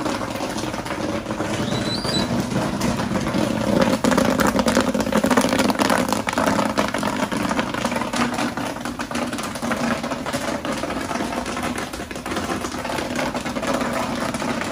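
Commercial popcorn machine running: a steady motor hum under a dense crackle of popping kernels, with popped corn tumbling out onto a stainless steel table. It gets louder about four seconds in.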